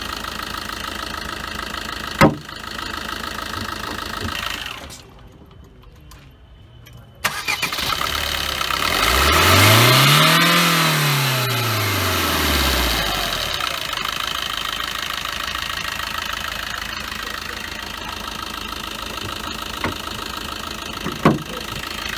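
Maruti Suzuki Ciaz's 1.3-litre DDiS diesel engine heard with the bonnet open. It drops to a low level, is started about seven seconds in, and is revved once, its pitch rising and then falling back. It then settles to a steady idle.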